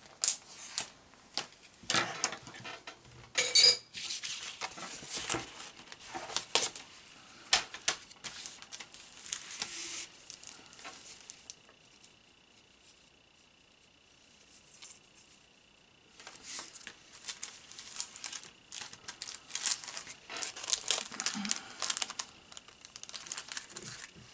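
Packaging and paper crinkling and rustling as sticker sheets and packets of chipboard embellishments are handled, with small taps and clicks on the desk, and a quieter pause about halfway through.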